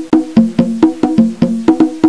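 Outro music: a quick, even run of short pitched wooden percussion notes, about seven strikes a second, moving between a lower and a higher note.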